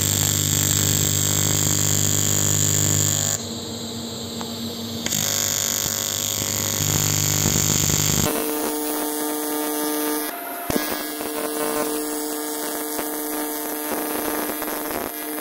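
AC TIG welding arc on porous, contaminated cast aluminium-silicon alloy, buzzing steadily with a harsh hiss, the AC frequency set to 50 Hz. The tone of the buzz shifts a few times, most plainly about eight seconds in, when its deep hum drops away.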